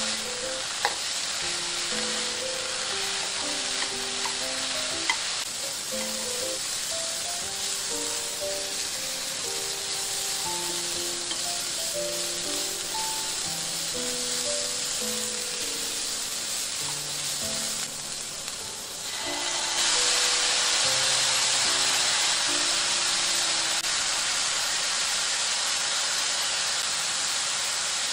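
Julienned burdock root sizzling as it stir-fries in perilla oil in a frying pan. The sizzle is steady and grows louder about two-thirds of the way through. Light background music plays over it.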